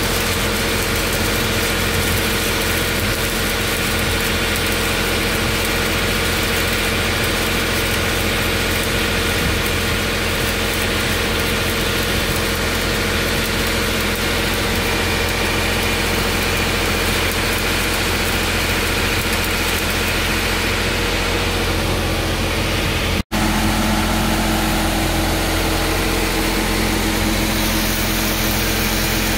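Stick-welding arc crackling and hissing as an electrode runs a bead on a steel pipe joint, over a steady engine drone. The sound breaks off for an instant about two-thirds of the way through.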